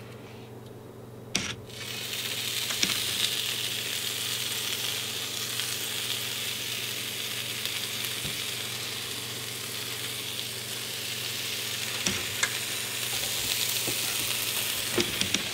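Dove and pigeon kabobs sizzling on a hot George Foreman electric grill. A knock comes about a second and a half in, and a steady sizzle starts just after and goes on, with a few light ticks.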